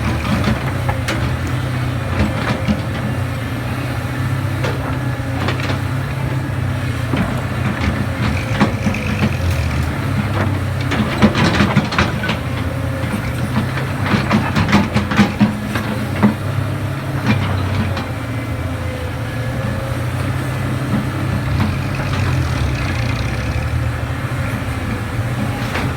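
Excavator's diesel engine running steadily under load, with bursts of clattering knocks around the middle.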